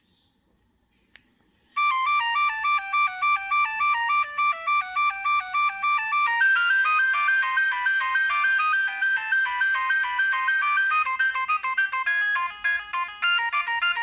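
Nokia 3590 mobile phone playing one of its preloaded ringtones through its built-in speaker: a fast tune of short, clipped electronic beep notes that starts about two seconds in and grows busier about six seconds in. A faint click comes just before it, about a second in.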